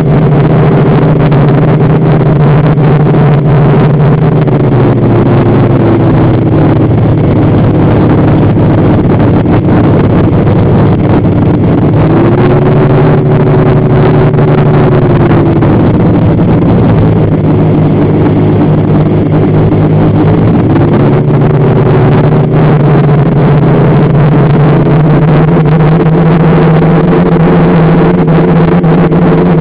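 Engines and propellers of a four-engine radio-controlled B-17 model aircraft in flight, heard close up from its wing: a loud steady drone over a rushing noise. The pitch falls and climbs back a few times as the throttle is eased and opened again.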